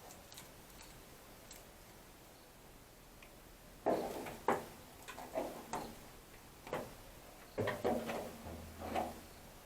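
Irregular short knocks and clicks, about eight of them, starting a little after halfway through after a quiet stretch.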